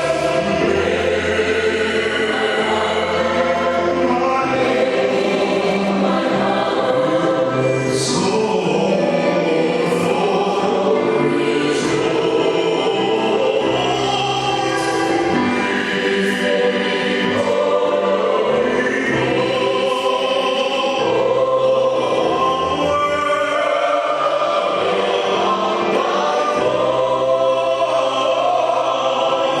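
High-school choir singing a song with many voices together, holding and changing notes steadily.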